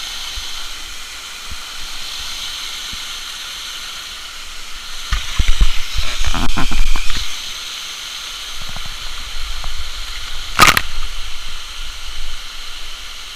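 Waterfall's steady rushing hiss. For a couple of seconds midway, louder low rumbling and knocks rise over it, and a single sharp click comes about ten and a half seconds in.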